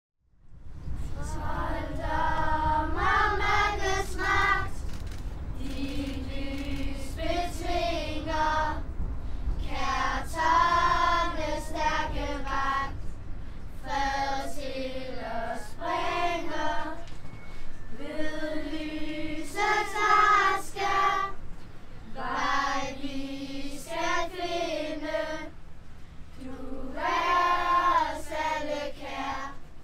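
Children's and girls' Lucia choir singing in unison, phrase after phrase with short breaths between. A low rumble runs underneath during the first third.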